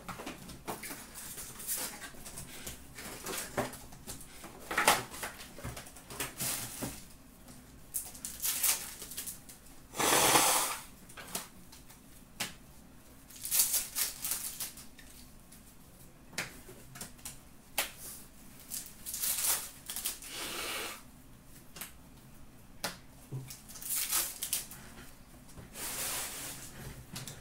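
Hockey card packs being opened and the cards handled: irregular rustles, flicks and light taps of cardboard cards and foil pack wrappers, with one louder rustle lasting about a second around ten seconds in.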